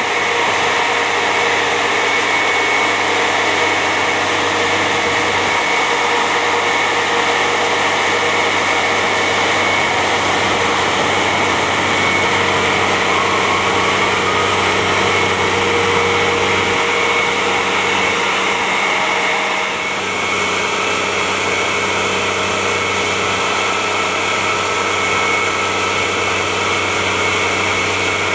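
A heavy tracked vehicle's engine running steadily, a constant drone with a high whine over it.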